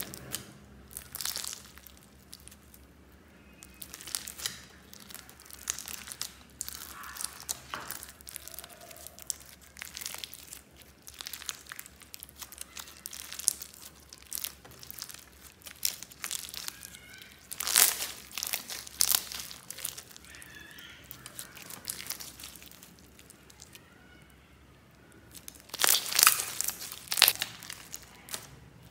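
Hands squishing and kneading clear slime packed with round beads as red colouring is worked in: irregular crinkly, crackling squelches, with louder bursts about two-thirds of the way through and again near the end.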